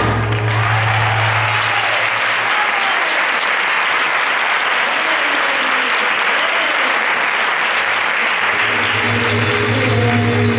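Audience applause, an even, dense clapping. Flamenco music drops away about two seconds in and comes back in near the end.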